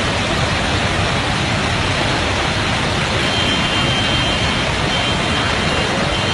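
Loud, steady rushing noise of a storm, even and unbroken.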